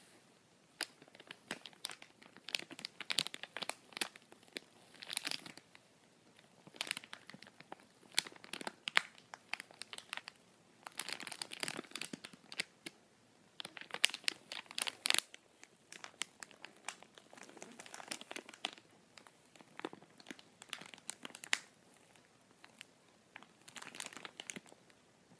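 A plastic bag crinkled and crumpled by hand close to the microphone, in uneven spells of sharp crackling that are loudest around the middle.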